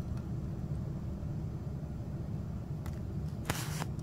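Steady low background rumble, with a faint click and then a short burst of hiss about three and a half seconds in.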